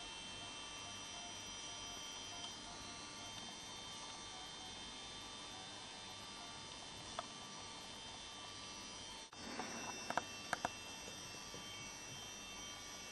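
Steady electrical hum with several faint, steady high whining tones. After a cut about nine seconds in there is a short stretch of rustling with a few soft clicks.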